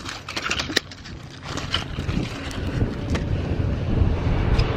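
Wind rumbling on the microphone, growing louder toward the end, with scattered crunches and clicks as gravel is stepped on and a board is picked up off it.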